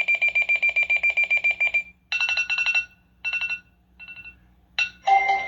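Sunrise alarm clock playing samples of its built-in ringtones: a rapid electronic beeping, about ten beeps a second, lasting about two seconds, then a different higher beep in three short groups, each fainter than the last. Near the end a melodic ringtone starts.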